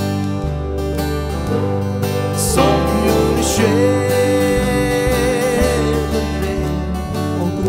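Live band playing a slow hymn: acoustic guitar over electric bass and keyboards, with a long held melody note with vibrato through the middle.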